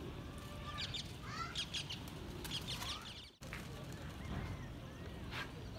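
Birds chirping in short, quick clusters of rising and falling notes over a steady low background rumble. The sound briefly cuts out a little past halfway.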